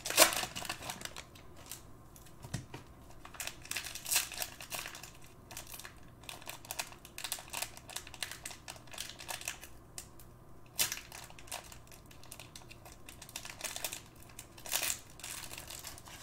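Plastic cello-pack wrappers of Panini Prizm basketball cards crinkling as the packs are handled and torn open by hand, in irregular crackles.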